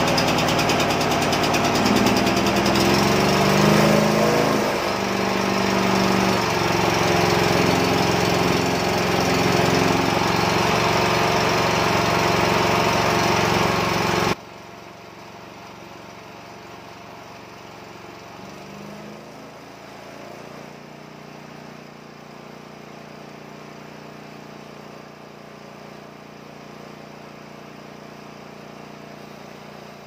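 Homemade band sawmill's engine running with the band blade turning, a loud rattling run. About halfway through the level drops abruptly and it carries on much quieter, its note rising briefly a few seconds later.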